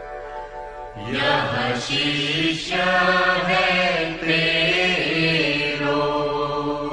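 Devotional guru vandana chant sung over a steady drone. The voice comes in about a second in and holds long, slowly bending notes, fading back to the drone near the end.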